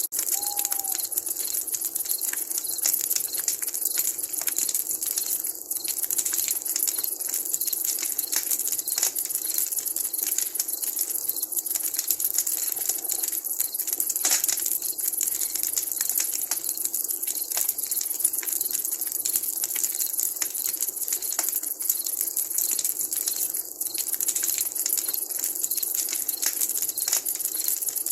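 Wood campfire crackling steadily, with many small irregular pops over a constant hiss.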